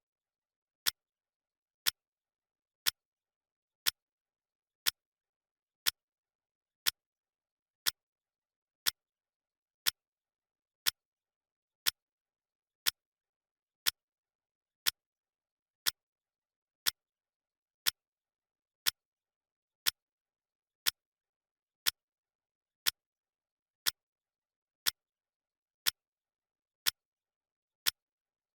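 Clock-ticking sound effect: a single sharp tick every second, evenly spaced, with silence between the ticks.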